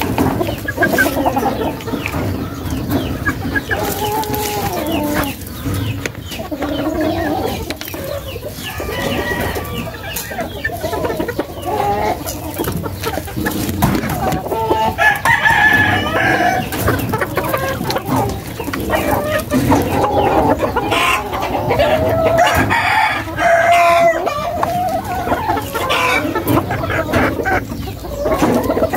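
Roosters clucking and crowing, many calls overlapping, with longer crows in the second half.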